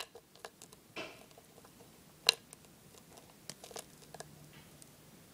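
Small polymer clay charms being handled and set down on a table mat: scattered light taps and clicks, the sharpest a little over two seconds in and a few more close together near the end.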